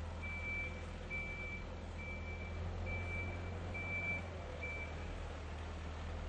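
Tractor engine idling with a steady low rumble while a reversing alarm beeps six times, about once a second, then stops.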